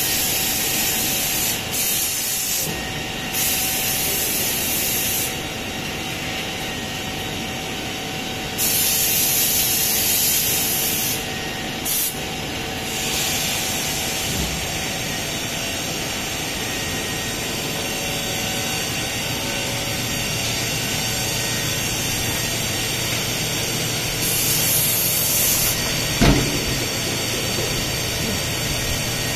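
Wood door CNC production line machinery running steadily, with repeated bursts of high hiss, several in the first half and one more near the end. A single sharp knock comes shortly before the end.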